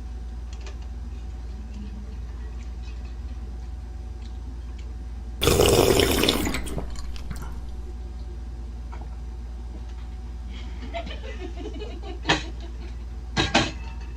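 Mukbang eating sounds over a steady low hum: one loud, wet slurp of beef noodles about five seconds in, lasting about a second and trailing off, then quieter mouth sounds and a few short lip smacks near the end.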